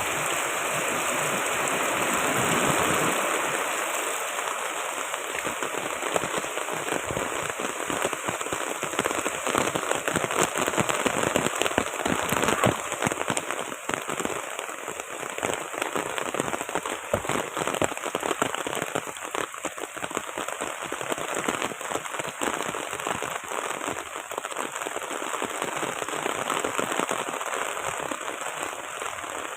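Heavy rain pouring down steadily, a dense hiss with many sharp drop hits on a hard surface.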